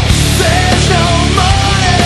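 Loud heavy metal music with distorted guitars over a driving low pulse, and a held, wavering lead melody.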